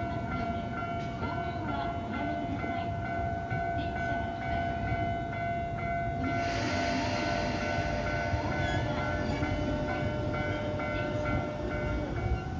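Level crossing warning bell ringing in an even, repeating two-tone pattern; from about six seconds in, a Keisei 3700-series electric train passes over the crossing with a loud rush of wheel and rail noise.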